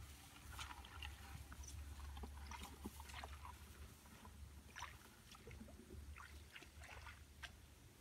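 Faint rustling and swishing of tall grass as legs push through it while walking, in short irregular brushes. A low steady rumble runs underneath.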